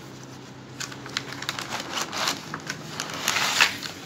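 A cardboard pen box being opened and a clear plastic pen tray slid out and handled: plastic crinkling and rustling with light clicks and taps, loudest a little past three seconds in.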